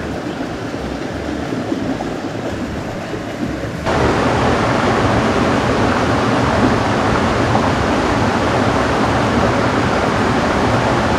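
Rushing water of a small mountain trout stream, a steady noise that suddenly gets louder about four seconds in.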